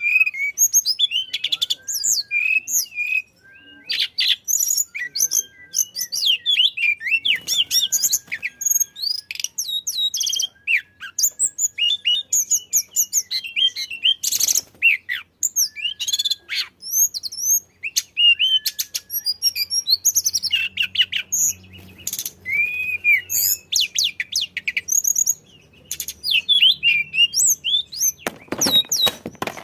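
Tledekan (shortwing) singing in full song: a long run of fast, varied high-pitched chirps, whistles and trills with only brief pauses.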